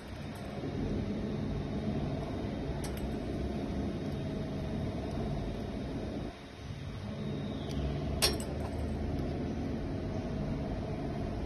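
Steady hum of factory machinery running, with a few light, sharp clicks; the loudest click comes about eight seconds in.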